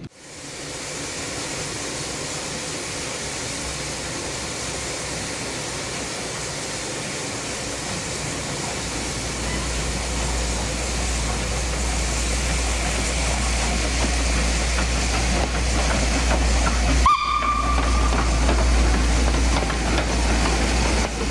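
Small narrow-gauge steam locomotive hauling a train of coaches past at low speed: a steady steam hiss growing louder as it approaches, joined by a low rumble about halfway. Near the end there is a short high note from the whistle.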